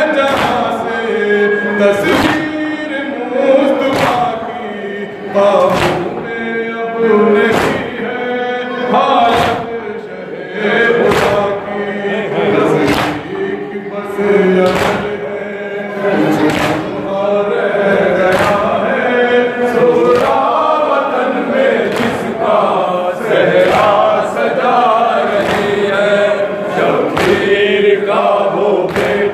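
Male voices sing an Urdu noha (Shia lament) in chorus, a lead reciter with others joining the refrain. Sharp rhythmic slaps about once a second keep time: mourners beating their chests (matam).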